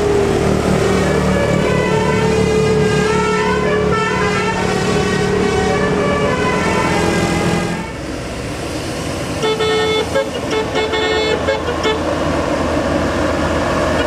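Multi-tone telolet air horn playing a stepping melody over the low hum of a vehicle engine. About eight seconds in it stops, and a second telolet horn starts sounding short, rapid on-off notes.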